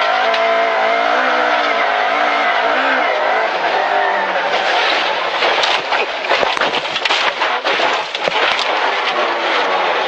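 Rally car engine revving hard, heard from inside the cabin, its pitch rising and falling with the throttle. About halfway through, snow and ice spray hammering against the body and windscreen adds a dense, uneven clatter for several seconds over the engine.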